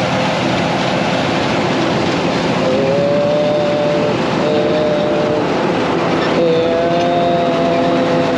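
Combine harvester running while harvesting soybeans: a steady loud machine drone, with a whining tone that comes in and out three times over the second half.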